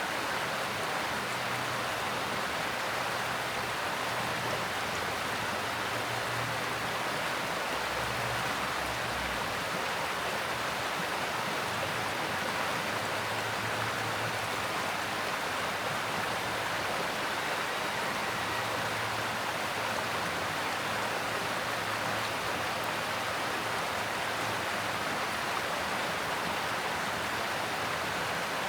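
Mountain stream rushing over rocks, a steady unbroken wash of water.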